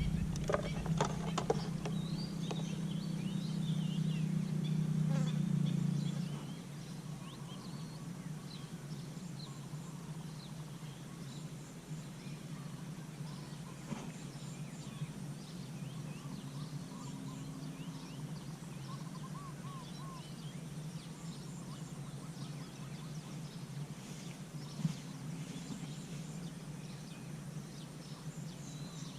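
A steady low buzzing hum, louder for the first six seconds, with scattered faint chirps of small birds.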